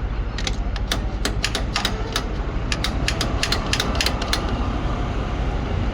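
A quick, irregular run of sharp mechanical clicks and taps, about fifteen in four seconds, from hand tools at work on the motorcycle's rear wheel and brake, over a steady low rumble of traffic.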